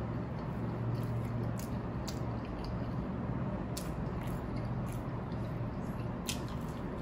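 Close-up chewing of a crisp-crusted fried Japanese curry bread, with about five short sharp crunchy clicks scattered through it over a steady low hum.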